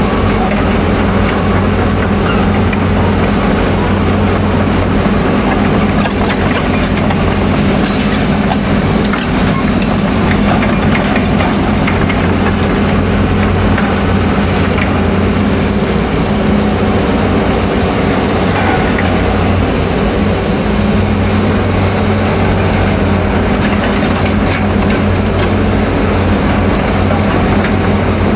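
An engine running steadily, with a constant low hum over a rushing noise.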